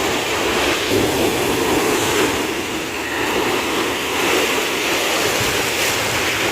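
Heavy cyclone-driven rain pouring down, a steady loud rushing.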